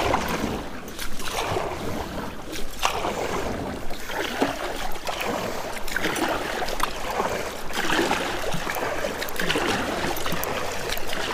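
Kayak paddle strokes dipping and splashing in lake water, alternating sides at a steady pace of about one stroke every second and a half.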